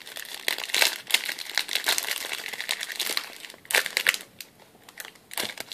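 Plastic wrapper of a trading-card pack crinkling and crackling as it is worked open by hand, with dense crinkling for the first three seconds or so, a sharp crackle a little before the four-second mark, then quieter. The pack is hard to open.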